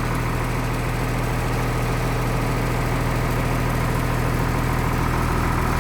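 Diesel engine of a 1996 Blue Bird school bus idling steadily while still cold, shortly after a glow-plug start, its intake heater still on.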